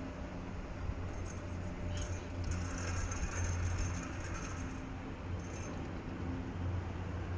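Outdoor background noise with a steady low hum, and light high jingling from about one to four seconds in and briefly again later.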